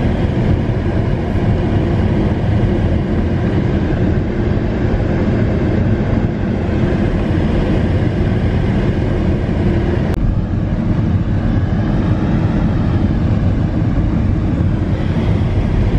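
Steady road rumble of a car driving at speed, tyre and engine noise without let-up, a little duller from about ten seconds in.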